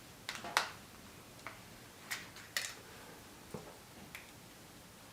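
A few light, separate clicks and taps, about seven spread over five seconds.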